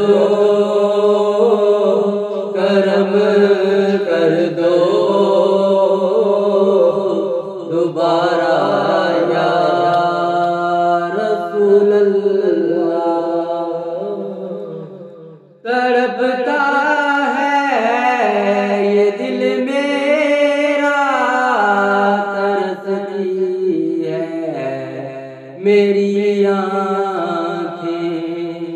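Unaccompanied male voice singing a naat: long, held, ornamented notes in two long phrases, with a short pause for breath about halfway through.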